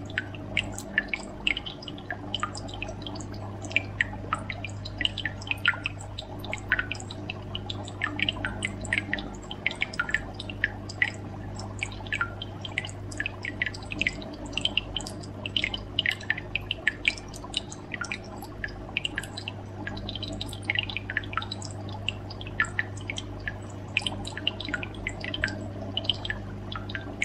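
Water dripping and bubbling: many short, irregular drops, a few a second, over a steady low hum.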